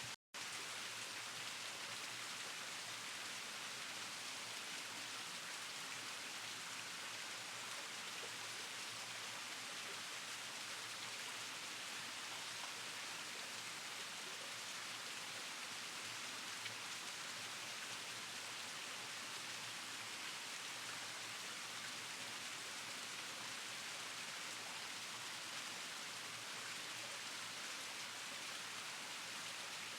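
Steady, even outdoor hiss with no bird calls, cutting out for a moment just after the start.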